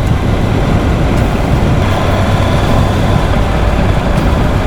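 Motorcycle riding along: a steady engine under loud, low wind rush on the microphone.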